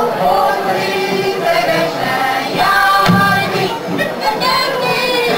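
Group of voices singing a Hungarian folk song together, a sung circle dance.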